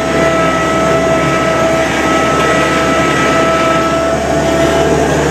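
2005 Thomas 153 skid steer's engine running steadily as the machine drives and pushes snow, heard from inside the cab, with a steady whine over it.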